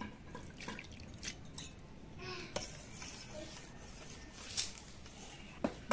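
Scattered light clicks and taps of a metal spoon against a stainless steel bowl while sugar is stirred into the mango liquid, with two sharper clinks in the second half.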